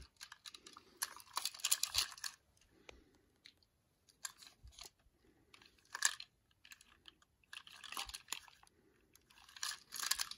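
Plastic toy trains and their packaging being handled: short bursts of crinkling and small plastic clicks. The bursts come about a second in and again around six, eight and ten seconds.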